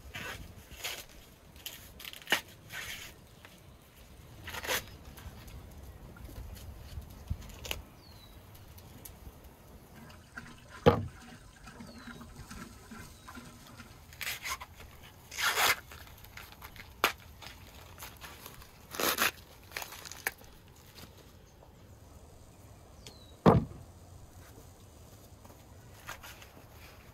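Husks being stripped from fresh ears of corn: scattered rustling and short tearing pulls as the leaves and silk come away. Two sharp knocks stand out, one near the middle and one later on.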